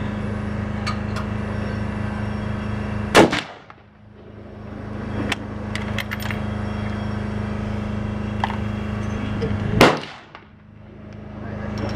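Two shots from a scoped hunting rifle, about six and a half seconds apart, each a single sharp crack. Between them come a few light metallic clicks as the rifle is handled and reloaded.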